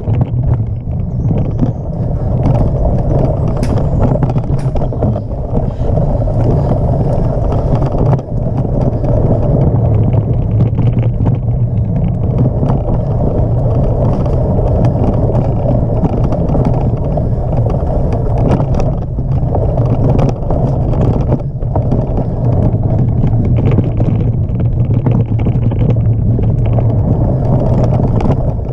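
Mountain bike ridden fast over a dirt forest trail: a loud, steady rumble of tyre and wind noise on the bike's microphone, with a few sharp knocks and rattles from the bike over bumps.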